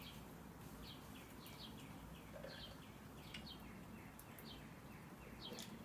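Near silence, with faint high chirps repeating about three times a second, like a small bird calling.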